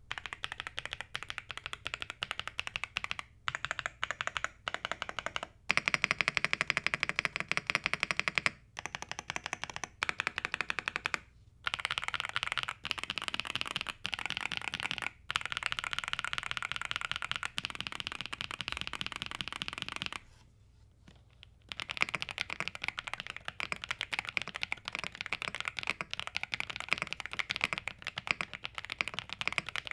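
Fast typing on a stock Yunzii AL75 aluminium 75% mechanical keyboard with Cocoa Cream V2 long-pole switches. The keystrokes are loud, marbly and poppy with a slight thock. The typing runs steadily, with a few brief pauses and a longer one about 20 seconds in.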